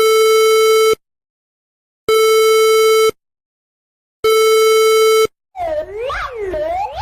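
Emergency Alert System-style alarm audio: three buzzy electronic tones, each about a second long and a second apart, then a wavering tone that swoops rapidly up and down in pitch starting a little over five seconds in.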